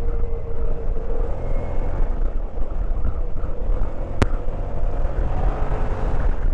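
Motorcycle on the move: steady wind rush and low road rumble over the mic, with a faint, slightly wavering engine note. A single sharp click about four seconds in.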